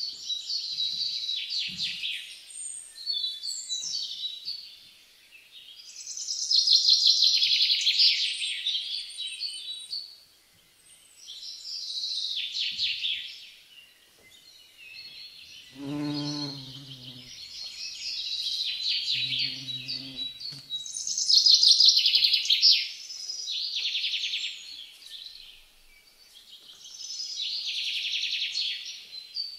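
Birdsong: repeated phrases of rapid trilling chirps, each a second or two long, with short pauses between. About halfway a low human voice sounds twice, briefly.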